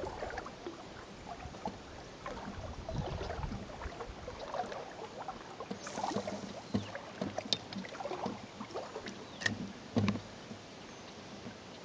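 Oars dipping and splashing as an inflatable pontoon boat is rowed, with irregular small splashes and a few sharper knocks.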